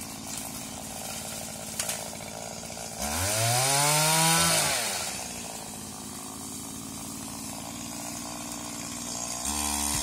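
Petrol pole saw engine idling, revved once for about two seconds so its pitch rises and falls back to idle, then speeding up again near the end.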